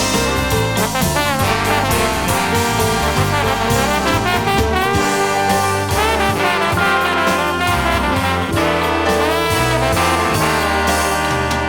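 Jazz-rock band music played from a vinyl record, with trombone and other brass carrying the melody over drums.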